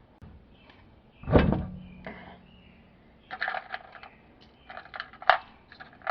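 A heavy metallic knock with a short low ring as a truck's rear wheel is set onto the hub, followed by clusters of light metallic clinks from the lug nuts being handled and started on the studs.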